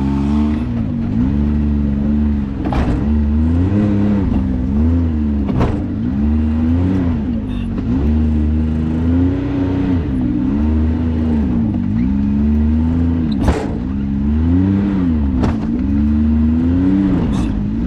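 Side-by-side UTV engine being throttled on and off, its revs rising and falling repeatedly as it crawls over rocks, with a few sharp knocks along the way.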